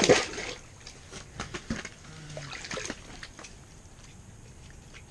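Water splashing and dripping as a freshly caught trout is handled over an ice-fishing hole, with a loud bump of handling at the start and a few scattered knocks and splashes over the next couple of seconds.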